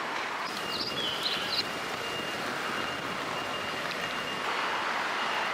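City street traffic noise, with a high-pitched beep repeating in short pulses from about a second in and a brief chirp near the start.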